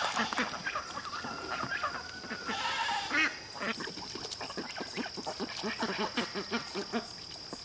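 A flock of white domestic geese calling: many short, low honks and gabbling notes, coming several a second in the second half, over a steady high-pitched whine.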